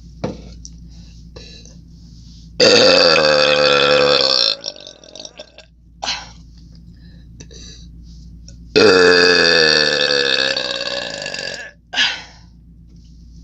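A woman burping twice, long and loud, after drinking a beverage. The first burp starts a few seconds in and lasts about two seconds. The second lasts about three seconds and slowly fades. Each drops in pitch toward its end.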